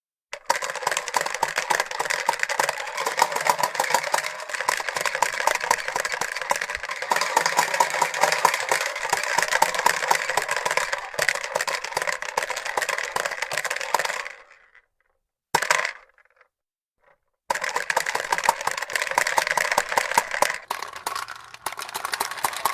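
Fisher-Price Corn Popper push toy rattling: plastic balls popping and clattering rapidly against its clear dome as it is pushed. The clatter breaks off about two-thirds of the way through, gives one short burst, then starts up again near the end.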